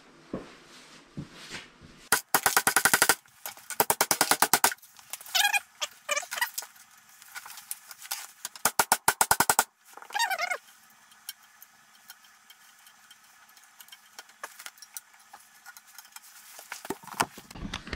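Hand tools being worked on the snowmobile's aluminium tunnel: several bursts of rapid, evenly spaced clicking, two short squeaks, then a quieter stretch with scattered light ticks.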